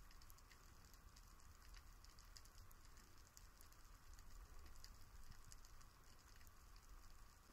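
Near silence: faint underwater ambience with scattered fine crackling ticks and a low rumble.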